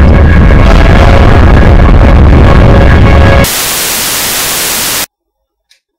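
A loud rushing roar with a deep rumble, which cuts off about three and a half seconds in and gives way to an even hiss of analogue TV static; the static stops abruptly about a second and a half later.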